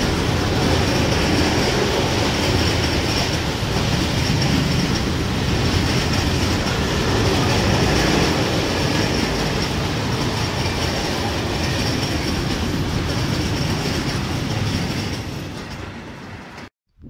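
Freight train of tank wagons rolling past, a steady loud rumble and rattle of wheels on the track. It fades as the last wagon passes near the end, then cuts off suddenly.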